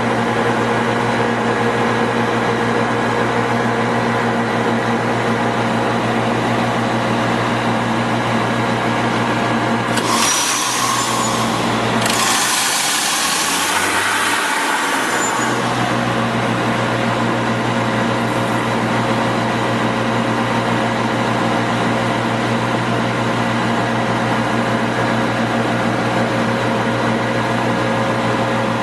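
Diesel engine of a Tamrock Pantera 1500 blasthole drill rig running steadily with an even hum. About ten seconds in, a rush of hiss comes twice in quick succession over a few seconds while the low hum briefly drops away.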